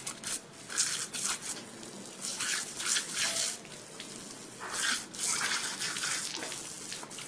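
A thin stream of water splashing and spattering as a husky snaps and bites at it, in irregular bursts of splashing.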